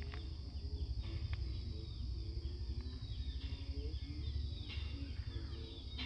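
Paddy-field ambience: a steady high insect drone with many short bird chirps over it, and a low rumble underneath.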